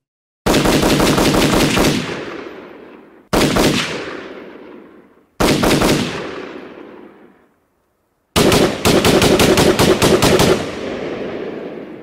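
AR-15-style rifle firing four strings of rapid shots, about seven a second: a long string, two short ones of a few shots each, then the longest, each trailing off in a long echo.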